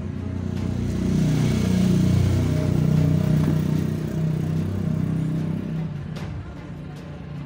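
A motor vehicle's engine passing by, growing louder over the first couple of seconds and fading away after about five seconds.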